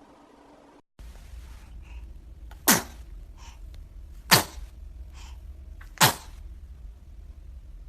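A baby sneezing three times, about a second and a half apart; each sneeze is a short, high squeak that drops in pitch.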